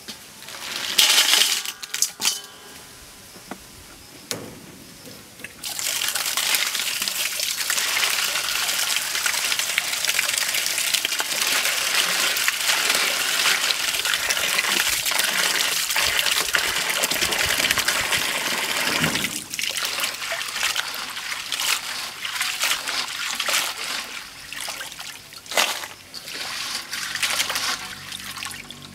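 Small crabs clatter into an empty stainless steel bowl a second or two in. From about five seconds in, a steady stream of water pours into the bowl for some thirteen seconds; then hands swish and rub the crabs in the water, with uneven splashing.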